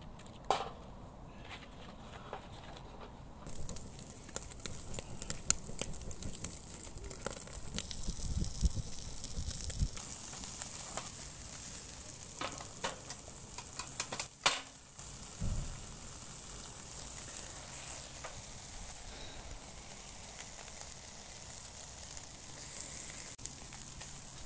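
Lamb sizzling over glowing charcoal in a wire grill basket: a steady high hiss with scattered crackles and pops of fat. A few sharp clicks stand out, one near the start and one about two thirds of the way in.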